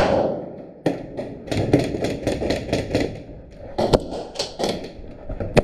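Airsoft gunfire: a rapid string of sharp shots, about six a second, starting about a second and a half in. A single louder crack follows about four seconds in and another near the end.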